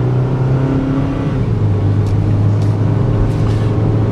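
2013 Chevy Equinox's 2.4-litre four-cylinder engine running, heard from inside the cabin as a steady low hum that drops slightly in pitch about a second in.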